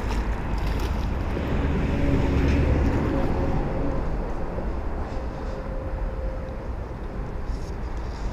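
Steady low rumble of a distant engine, swelling slightly a couple of seconds in and then easing off.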